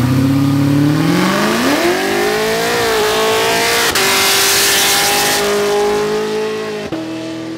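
Cadillac CTS-V's supercharged V8 revving hard in a burnout, with the rear tyres spinning and smoking. The engine pitch climbs over the first two seconds or so and holds high under a loud tyre hiss, then drops to a lower steady rev about seven seconds in.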